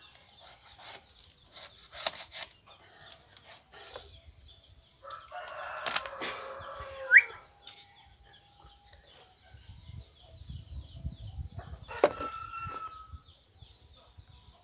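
A rooster crowing once near the middle, with another, shorter fowl call later on, over scattered small clicks of handling.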